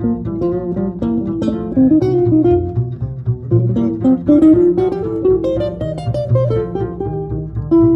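Jazz guitar and double bass duo: an archtop guitar plays a single-note melody line over plucked double bass notes.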